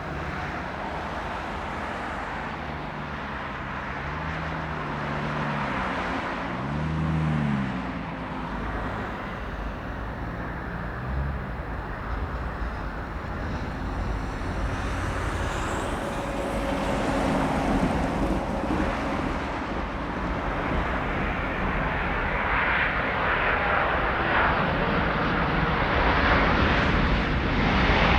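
Airbus A350 jet engines (Rolls-Royce Trent XWB) running as the airliner approaches, a steady roar that grows louder throughout.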